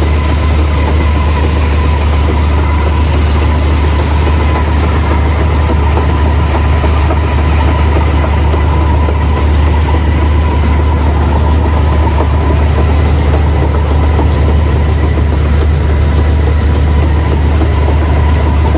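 Rice combine harvester running steadily under load while harvesting: a loud, even diesel engine drone with a faint steady whine from the machinery.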